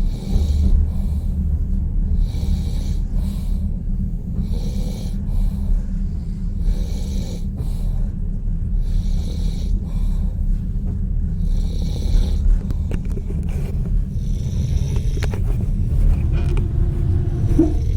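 A sleeping passenger snoring loudly, one snore about every two seconds, over the steady low rumble of a railway sleeper carriage. The snores trail off near the end, where a few clicks and a short squeal come in.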